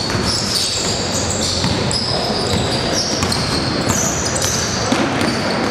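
Basketball game in play: sneakers squeak repeatedly on the gym's hardwood court, with the ball bouncing.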